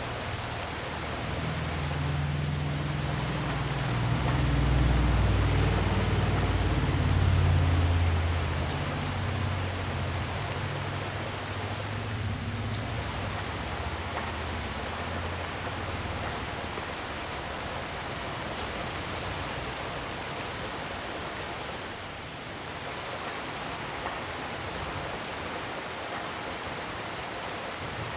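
Steady rain hiss, with a long low rumble of rolling thunder that builds a couple of seconds in, swells, and dies away about ten seconds in.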